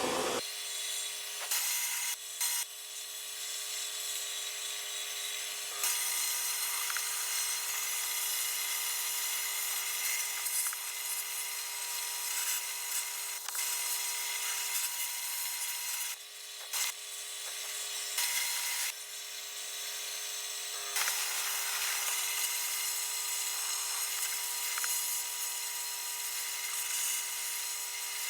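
Vapor blast cabinet running: a continuous hiss of glass-bead slurry and compressed air blasting an aluminum air-cooled Volkswagen cylinder head, swelling and easing at times, with a faint steady whine underneath.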